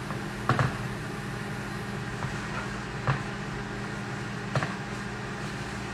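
Three short knocks of a utensil or container against a bowl over a steady low hum.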